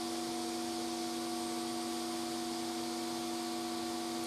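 Smoke evacuator running with a steady hiss as it draws air through its hose, over a steady hum of several held tones.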